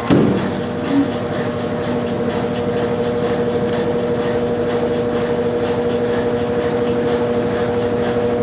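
Brassul Atilite 10 kg top-loading washing machine agitating during its rinse cycle: the motor hums steadily with the water churning, starting with a knock and cutting off suddenly near the end.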